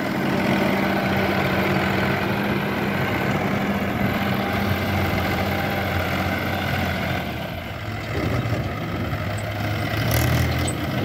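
Swaraj 843 XM tractor's three-cylinder diesel engine running steadily while the tractor drives with its trolley. The engine sound dips a little about eight seconds in and picks up again near the end.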